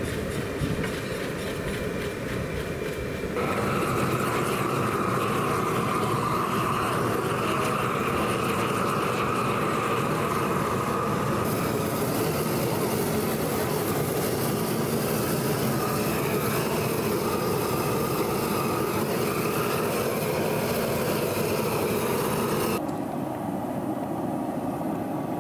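Steady rushing of a propane torch flame singeing the hair off a hog carcass. The sound shifts abruptly a few seconds in and again near the end.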